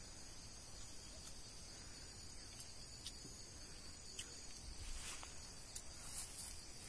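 Faint steady chorus of insects, a high continuous chirring of several tones, with a few light ticks.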